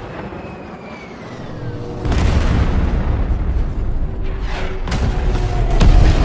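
Film-trailer explosion effects: a deep boom about two seconds in that rolls on as a low rumble, with further sharp booms near the end, over the trailer's music score.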